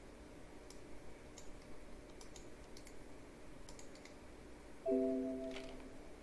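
Scattered light clicks of a computer keyboard and mouse. About five seconds in comes a short pitched chime, the loudest sound, fading away over about a second.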